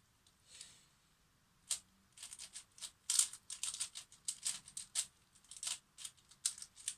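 A freshly lubricated Maylong 5x5 speed cube being turned by hand: a sharp click, then a quick, irregular run of plastic clicks and scraping swishes as the layers turn. The turning is still a bit locky, the layers catching now and then.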